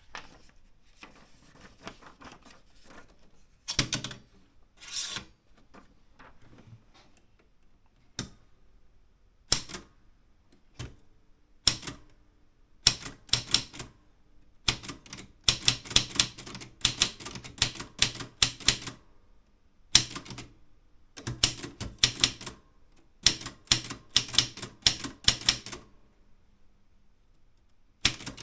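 Typewriter typing. A few separate key strikes come first, then fast runs of keystrokes broken by short pauses.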